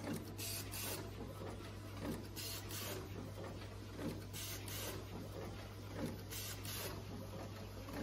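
SA-1690-3T automatic wire crimping and insulated-sleeve insertion machine running, cycling about every two seconds: each cycle has a small knock followed by two short hisses, over a steady low hum.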